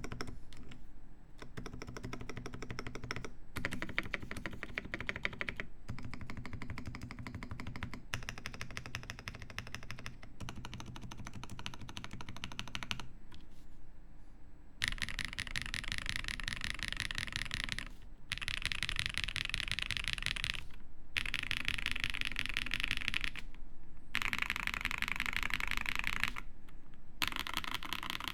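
Fast typing on a Zoom TKL mechanical keyboard with lubed MM switches, a carbon fibre plate and GMK keycaps: dense runs of keystrokes lasting a few seconds each, broken by short pauses. About halfway through the clatter turns brighter and sharper.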